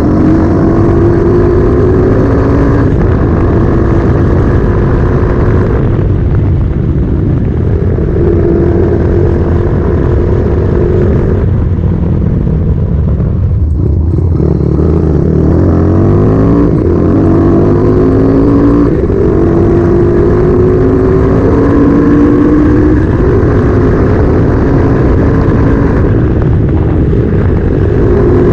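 Bored-up 250cc Honda single-cylinder motorcycle engine under way, its pitch climbing through each gear and dropping back at every upshift. Near the middle it drops low and then pulls up again through the gears.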